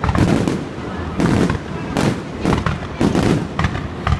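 Fireworks display: aerial shells bursting in quick succession, a rapid run of booming bangs, several each second.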